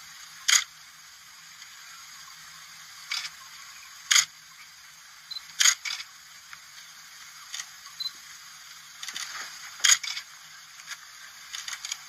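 Sharp short clicks at uneven intervals, about ten of them, over a steady hiss.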